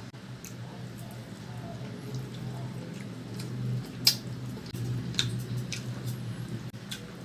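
Close-up eating sounds of a person chewing roast chicken: wet squishy chewing broken by sharp mouth clicks and smacks, the loudest about four seconds in. A steady low hum runs underneath.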